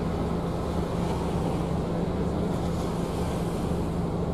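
Bus engine running steadily with tyre and road noise, heard from inside the passenger cabin as an even low hum under a rushing noise.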